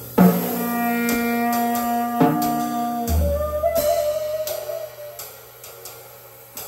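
Live free-jazz duo of saxophone and drum kit: the saxophone holds one low note for about two seconds over scattered cymbal and drum strokes. About three seconds in a deep drum boom sounds, under a quieter wavering tone that fades away.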